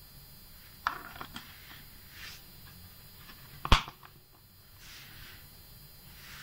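A lithium-ion battery being handled and pressed into the spring-loaded slot of a TrustFire TR-001 charger: a few light plastic clicks about a second in, then one sharp, loud snap as the cell seats a little past halfway, with soft rustles of handling in between.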